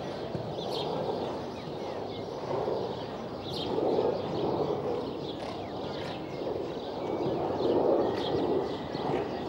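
Birds chirping over a steady outdoor rush, with the soft hoofbeats of a show jumper cantering on the sand arena.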